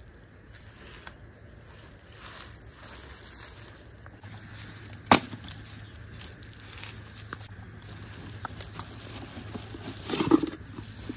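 Handling noises on dry forest litter: dry leaves and twigs rustling and crackling, with one sharp crack about five seconds in. Near the end a cloth bag rustles and a metal wok knocks as it is pulled out of the bag.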